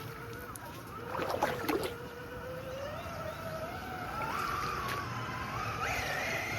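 Electric RC rock crawler's Hobbywing 1800kv brushless motor whining as it climbs, the pitch rising steadily in steps as more throttle is fed in. A few knocks around a second or two in.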